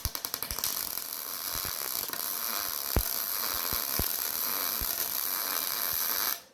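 A power tool working on the smoker's steel, running with a steady high hiss, with a quick rattle of ticks at the start and a few sharp knocks along the way, then cut off suddenly near the end.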